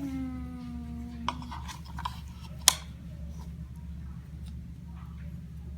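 A short hummed "hmm" at the start, then jigsaw puzzle pieces clicking and tapping as they are handled and pressed into place, with one sharp tap a little past the middle the loudest.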